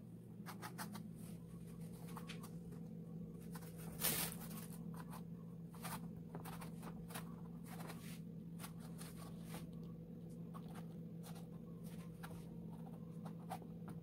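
Hands working over a resin-coated canvas: a string of small scratches, rubs and clicks, one louder click about four seconds in, over a steady low hum.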